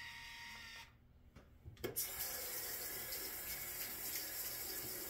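Sink faucet running in a steady stream while shaving cream is rinsed off a freshly shaved head; the water comes on about two seconds in, just after a click.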